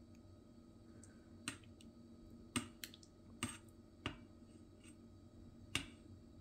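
Ladle knocking and scraping against the stainless-steel inner pot of an Instant Pot while curry is scooped out: six or so short, sharp clicks and taps, irregularly spaced, over a faint steady hum.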